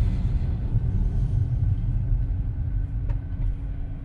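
Low road and tyre rumble inside the cabin of a Tesla Model 3, an electric car with no engine note, as it brakes itself down to a near stop for a stop sign; the rumble eases off toward the end. A steady low hum comes in about halfway, with a couple of faint clicks near the end.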